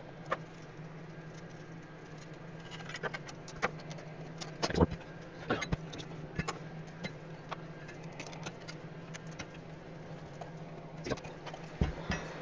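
Irregular clicks, knocks and light rattles of hands handling a bench power supply's metal case, circuit board and wire connectors while taking it apart, the loudest knock about five seconds in. A steady low hum runs underneath.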